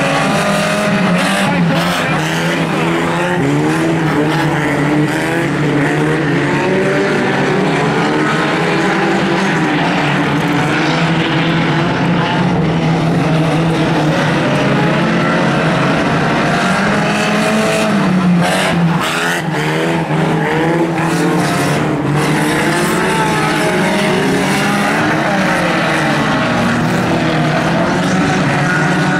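Several banger racing cars' engines running hard in a race, their notes rising and falling as the drivers accelerate and lift, with a few sharp knocks in the middle.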